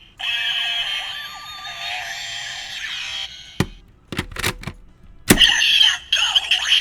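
Electronic sound effects with gliding, warbling tones playing from the speaker of a DX Kamen Rider henshin belt toy with a Dangerous Zombie Gashat, then a few sharp plastic clicks as its parts are worked. Loud electronic toy sounds start again about five seconds in.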